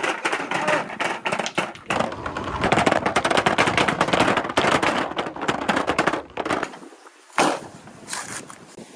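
Many billiard balls and marbles rolling and clacking down a handmade wooden marble-run track, a dense rattle of knocks that thins out about six and a half seconds in, leaving a few separate clacks near the end.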